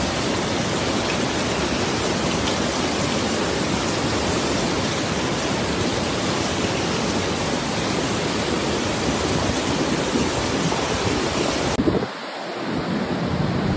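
Fast-flowing muddy floodwater rushing in a torrent, a steady loud noise. About twelve seconds in it breaks off into a quieter recording with low rumbling.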